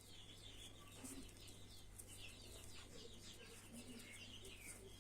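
Faint birds chirping in the background: a continual run of short, quick, falling chirps, over a steady low hum.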